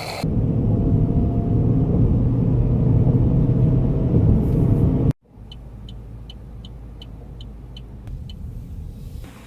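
A car running, with a loud low rumble for about five seconds. After a sudden cut it is a quieter low hum, over which come about eight sharp, evenly spaced ticks, roughly two or three a second.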